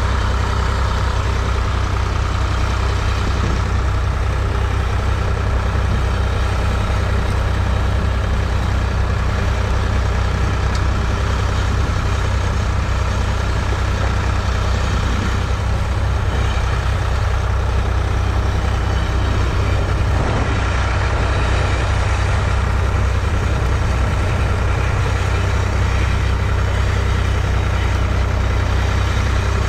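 1970 Ford 3000's 2.9-litre three-cylinder diesel engine running at a steady speed: a constant low drone that holds one pitch throughout.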